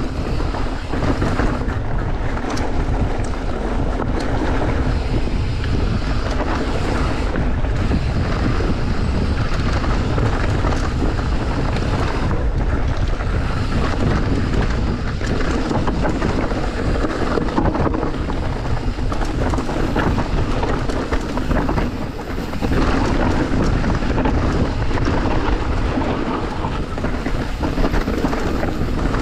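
Wind buffeting the microphone of an e-mountain bike rider on a trail descent, with tyres running over dirt and rock and the bike rattling and knocking throughout.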